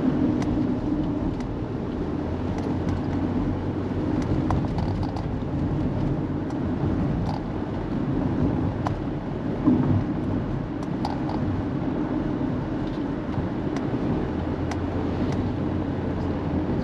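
Car driving on a road, heard from inside the cabin: a steady engine and tyre drone with scattered small clicks and rattles, and one louder knock past the middle.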